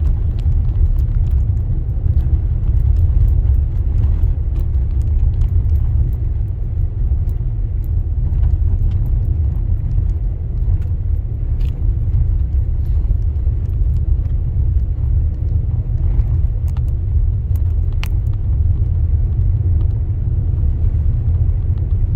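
Car driving on an icy road: a steady low road-and-engine rumble heard from inside the cabin, with a few faint ticks scattered through it.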